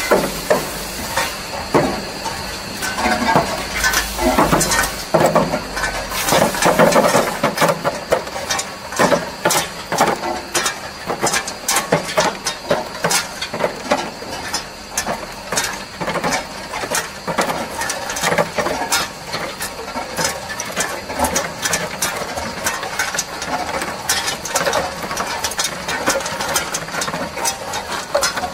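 Solid ice tubes clattering and clinking as they tumble out of a tube ice machine's outlet chute into a plastic tub: a dense, irregular run of small clicks that grows thicker toward the end, over the steady running of the machine.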